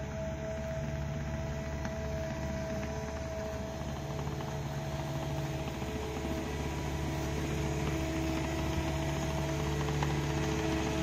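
Cat 279D3 compact track loader's diesel engine running steadily under load while it grades sand with a grading box, a low rumble with a steady whine over it, growing slightly louder as it comes closer.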